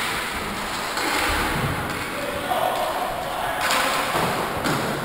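Inline hockey play in a large hall: knocks of sticks and puck against the floor and boards over the running noise of skate wheels, with players calling out.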